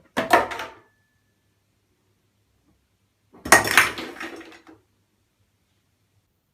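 Two sudden clatters of hard objects about three seconds apart, each tailing off over about a second; the second is longer.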